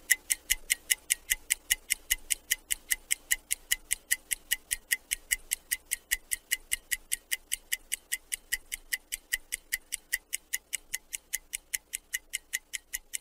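Countdown-timer ticking, a fast steady clock tick at about six sharp ticks a second, running while a timed round is under way.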